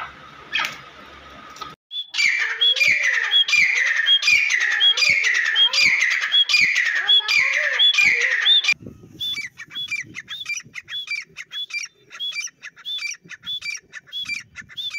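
Grey francolin calling: starting about two seconds in, a loud series of repeated ringing call notes about two a second, then a quicker, fainter run of the same kind of notes about three a second.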